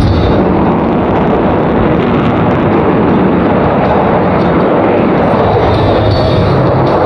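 Loud, steady jet noise from an F-22 Raptor's twin Pratt & Whitney F119 turbofan engines.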